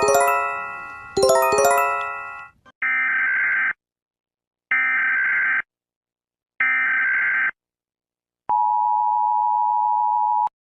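Emergency Alert System alarm tones: two struck chime chords that ring and fade, then three one-second bursts of SAME header data tones with gaps between them. About eight and a half seconds in, the steady two-tone EAS attention signal starts.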